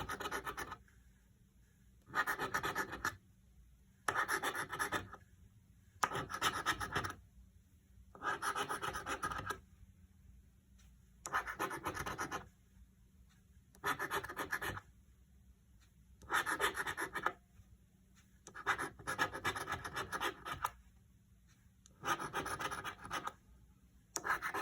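Scratch-off lottery ticket being scratched in short strokes, about one second of scratching roughly every two seconds, as the play spots are uncovered one at a time.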